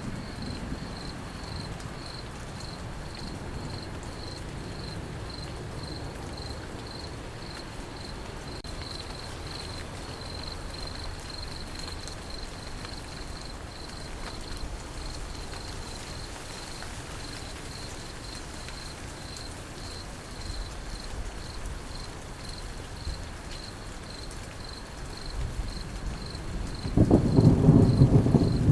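Crickets chirping steadily, a high pitched chirp a few times a second, over soft rain and a low distant thunder rumble. Near the end a much louder roll of thunder breaks in.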